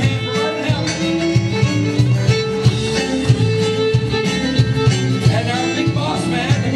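A live band playing, with a bowed fiddle carrying the lead melody in long held notes over bass guitar and a steady drum beat.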